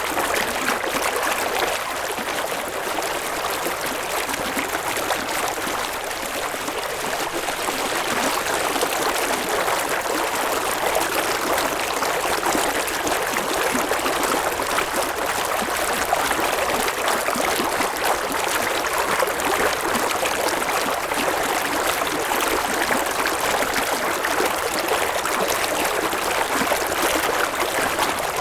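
River water flowing over stones: a steady, even rush of running water.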